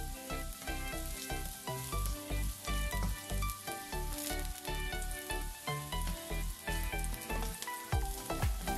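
Ginger slices sizzling in hot oil in a wok, with a crackle of spitting oil as they are stirred with a slotted spatula. A background music track with a melody and a steady bass beat plays throughout.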